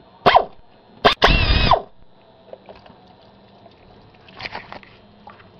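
Ratchet turning a socket on a long extension to run out the water pump bolts, in short bursts: a brief one just after the start, a longer buzzing run about a second in, and a fainter one past the middle.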